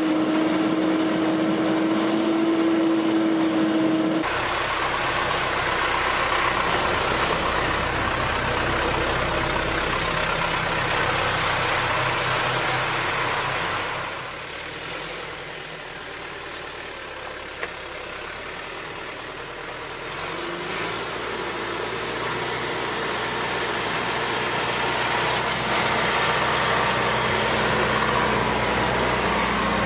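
Engine-driven farm machinery running: first a straw bedding blower, whose hose-fed hum gives way to a dense rush after a sudden change a few seconds in, then a tractor engine running as it pushes feed with a tire scraper. The sound goes quieter for a few seconds in the middle.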